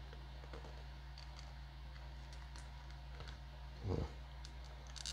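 Faint clicks and taps of hard plastic display-stand pieces being handled and fitted together, with one soft low thump about four seconds in, over a steady low hum.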